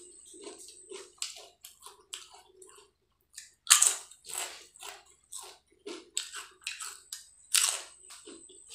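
Potato chips being bitten and chewed: a run of crisp crunches and crackles, with two loud bites, one about a third of the way in and one near the end.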